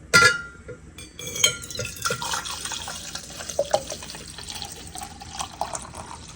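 A cup clinks with a short ringing note, then liquid pours into it while coffee is being made, with a few more small clinks.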